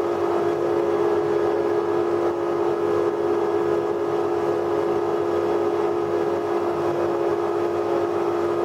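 Spindle moulder (wood shaper) running free at speed between cuts, a loud, steady hum with a constant tone.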